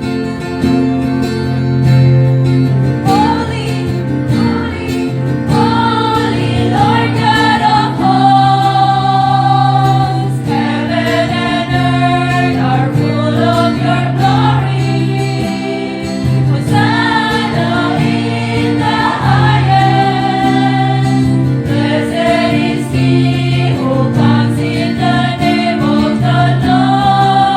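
A church choir sings a hymn in unison melody over steady guitar accompaniment. The voices come in about three seconds in, after a short instrumental lead-in.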